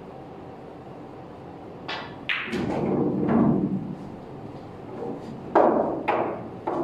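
Pool cue striking the cue ball, then sharp clacks of balls colliding and a low rumble of a ball rolling. Three more clacks come near the end, well spaced.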